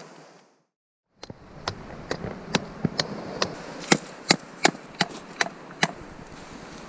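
A blade chopping into wood as a piece is carved by hand: sharp strikes at about two to three a second, starting about a second in after a moment of silence and stopping near the end.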